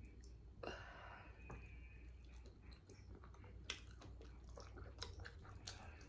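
Faint chewing and small mouth clicks of someone eating a meal, with a brief louder rustle about a second in.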